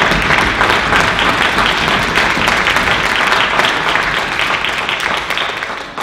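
Audience applauding, a dense patter of many hands that fades away near the end.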